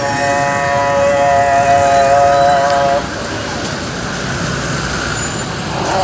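Busy outdoor street noise with a steady high-pitched droning tone over it that cuts off suddenly about three seconds in.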